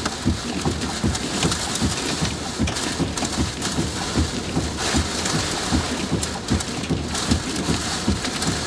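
Heavy rain driven sideways by severe thunderstorm winds, gusting past 80 mph, hitting the vehicle. A steady hiss with scattered sharp ticks of drops, over rapid, uneven low thumps of wind buffeting.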